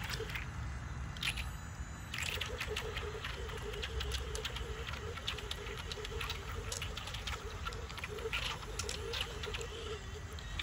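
Light splashing and water pattering from an electric toy shark swimming at the surface of a pool, with a low wavering hum starting about two seconds in.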